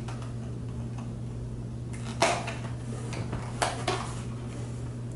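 Small hard items being handled: a sharp click about two seconds in, then two lighter clicks close together later on, over a steady low hum.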